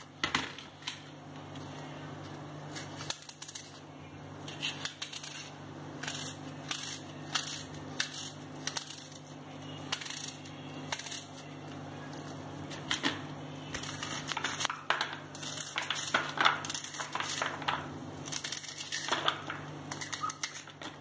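Red onion being chopped by hand with a small knife, held in the fingers over a ceramic dish: irregular crisp crunching cuts, each one short.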